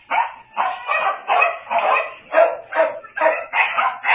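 Caged kennel dogs barking over and over, about two or three barks a second, excited at feeding time.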